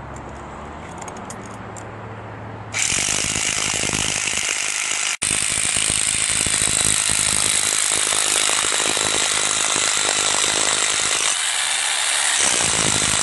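Corded SDS hammer drill with a masonry bit hammering into granite: a loud, steady rattling hammer-drill sound that starts about three seconds in and runs on, with one momentary break about five seconds in.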